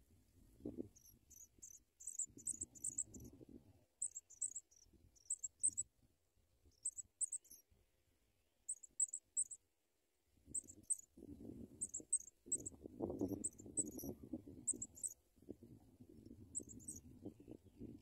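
Thin, high chirps in quick clusters of two to five notes, repeated about every second: pipit nestlings begging at the nest. A low rumbling noise sits underneath in the first few seconds and again through the second half.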